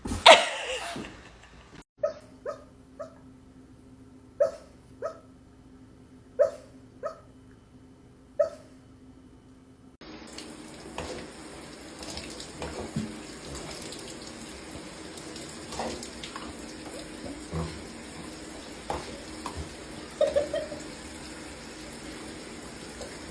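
A dog giving short high-pitched yelps, mostly in pairs, for several seconds. About ten seconds in, these give way abruptly to a steady rushing noise with a few faint sounds in it.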